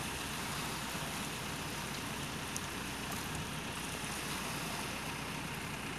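Steady rushing noise of shallow, muddy sea water washing at the shore.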